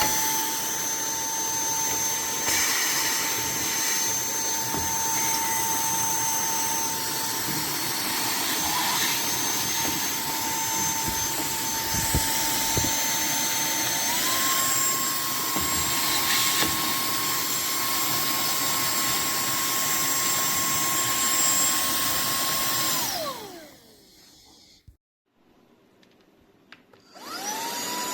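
SERVOMASTER cordless handheld vacuum cleaner running with a steady high motor whine. About halfway through it is switched up to its higher speed and the pitch steps up. Near the end it is switched off and winds down, then starts up again after a few seconds.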